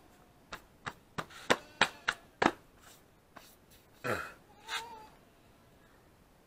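A quick run of about seven sharp slaps as hands pat and brush dust off bare arms. Around four seconds in there is a short falling vocal sound, then a brief higher-pitched call.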